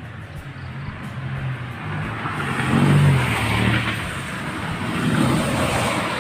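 A motor vehicle passing by: engine and tyre noise swells to its loudest about three seconds in, swells again slightly, then fades.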